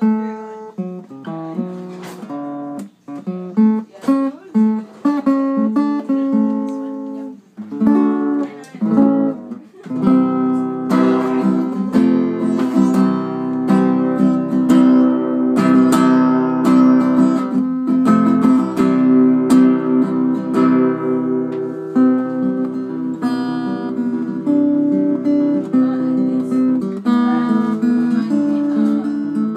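Acoustic-electric guitar played through a Crate VC508 combo amplifier: separate picked notes and broken chords for about the first ten seconds, then continuous strummed chords.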